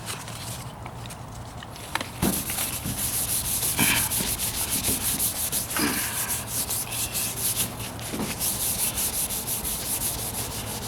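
Rag wiping grease remover across a freshly sanded, body-filled truck wheel arch. Quick repeated rubbing strokes start about two seconds in.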